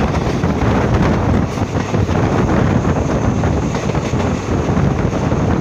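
Rumble of a moving passenger train, heard from outside the coach window with wind buffeting the microphone; a loud, steady noise with no distinct wheel clicks.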